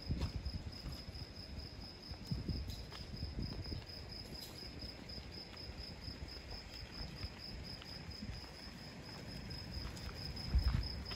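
Crickets trilling in a steady high pulse, over a low uneven rumble and a few light knocks from a small aircraft being pushed on its wheels across pavement.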